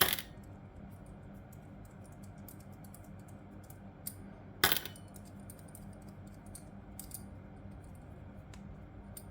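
Light clicks and clinks of small metal and plastic fuse-box parts and screws being handled during dismantling, with two louder knocks, one at the start and one about halfway through. A steady low hum underneath.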